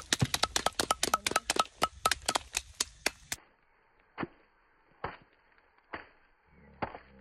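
Sun-dried riang (Parkia timoriana) pods being beaten with a wooden club against a wooden board, the brittle husks cracking open to free the seeds. Quick sharp knocks, about five a second, until a little past three seconds in, then single knocks about once a second.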